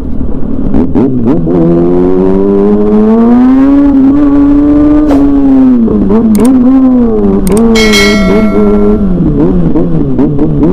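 Sportbike engine under way, its pitch climbing steadily for the first few seconds, then dropping and rising again and again as the throttle is opened and closed in traffic. A short high ringing sound cuts in about eight seconds in.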